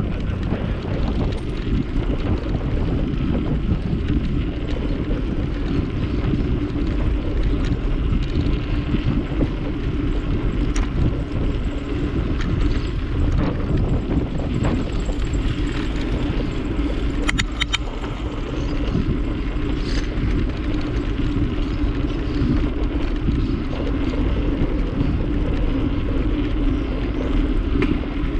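Steady wind rush on the microphone and rolling noise from a moving bicycle: a constant low rumble with a faint steady hum through it.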